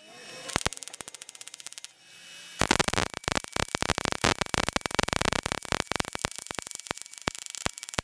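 Wire-feed welder arc crackling as a bracket is welded onto a steel tube: a short tack about half a second in, then a longer run of steady crackle from about two and a half seconds in.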